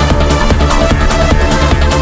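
Electronic trance-style music with a steady beat.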